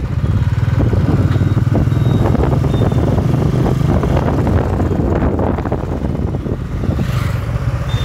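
Motorcycle or scooter engine running steadily as it rides along a road, heard from the rider's seat, with a low, even hum under road noise.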